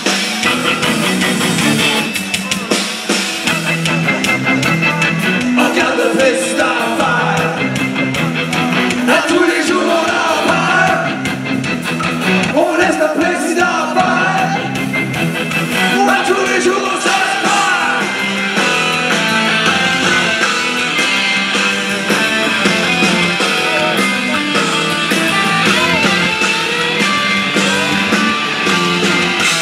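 Rock band playing live: electric guitars, keyboard and drum kit, with a singing voice over them.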